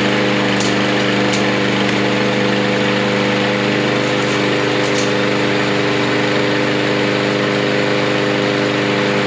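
Troy-Bilt mower's Briggs & Stratton engine running steadily at an even speed, now that its carburetor bowl has been taken off and cleaned out after the engine would not keep running.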